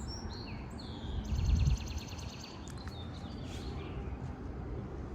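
Wild birds chirping, with a fast trill about a second in, over gusty wind rumbling on the microphone. The strongest gust comes about a second and a half in.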